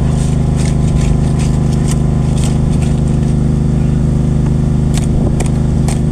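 An engine running steadily at a constant speed, with scattered short scrapes and clicks of work over it, most of them near the end.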